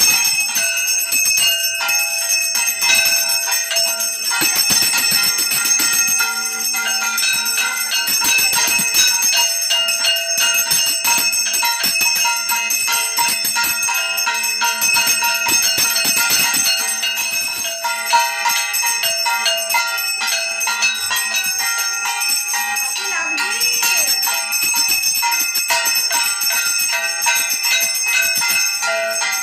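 Hand-held puja bell rung rapidly and without a break, as during an aarti: a dense run of strikes with bright overlapping ringing.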